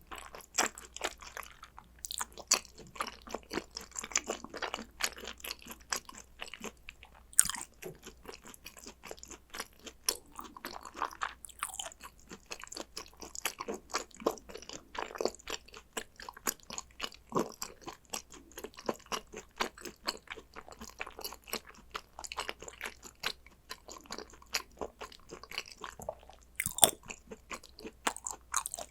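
Close-miked chewing of spicy gochujang beef tartare (yukhoe): a steady run of wet, crackly crunches and small bites, with a few sharper, louder crunches along the way.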